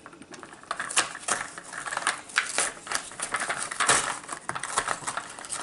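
Cardboard and hard plastic packaging of a Mighty Beanz pack being worked open by hand: irregular rustling, scraping and sharp plastic clicks.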